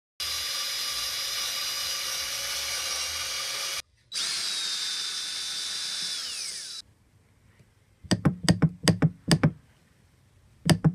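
Handheld power drill running in two bursts of about three seconds each, with a steady whine; at the end of the second burst the motor winds down and its pitch falls. After a short pause come a quick series of about six sharp clicks or knocks, then two more near the end.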